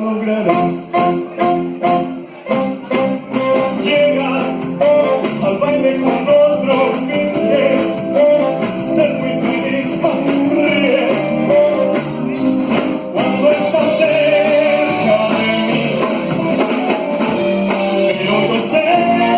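Live band playing a Chilean pop song, guitar to the fore over bass and drums. Sharp rhythmic chord strokes in the first few seconds give way to a held, wavering melody line.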